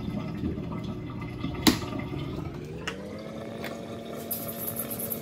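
A sharp click, then an electric fan motor spinning up, its hum rising in pitch and settling steady. Near the end a fine, rapidly pulsing high hiss starts.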